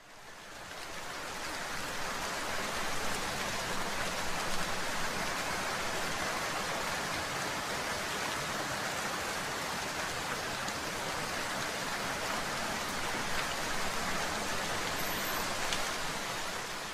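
Steady rain falling, an even hiss that fades in over the first couple of seconds and fades out near the end.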